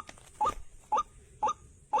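White-breasted waterhen 'ruak' calls: a short rising note repeated evenly about twice a second, four times here, with a steady high-pitched whine behind.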